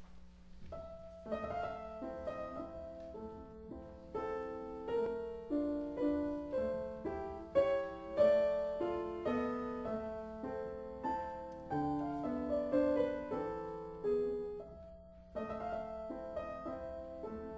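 Background music: solo piano playing a melody of struck notes with a steady pulse, with a faint steady hum underneath.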